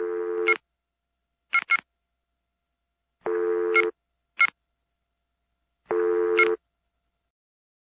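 Telephone touch-tone keypad beeps, short two-note dial tones pressed singly or in quick pairs, alternating with three bursts of about half a second of a low steady telephone tone, with silence in between.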